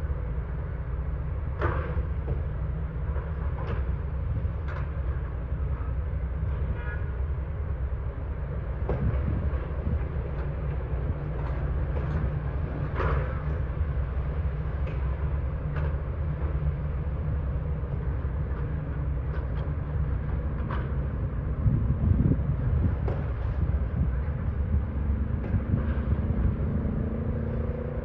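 Heavy diesel machinery running with a steady low rumble, with scattered sharp metal clanks and knocks. The engine pitch rises briefly about two-thirds of the way through and again near the end.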